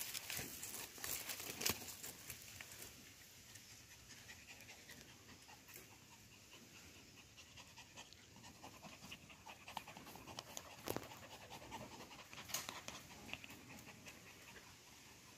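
A dog panting in quick, short breaths, a few of them louder.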